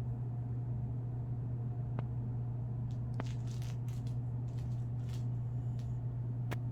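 A steady low hum, with a few faint clicks and crackles over it.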